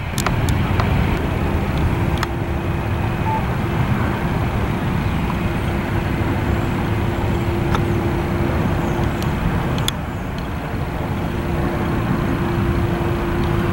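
Steady engine noise with a droning hum that comes in about a second and a half in and drops out briefly near ten seconds.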